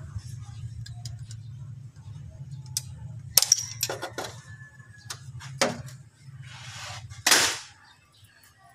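Sharp metallic clicks and clinks of a screwdriver working against the timing-belt tensioner and surrounding metal of a Toyota 2C engine, about eight separate ticks over a few seconds, then a short scraping rush. A low steady hum sits under them and fades near the end.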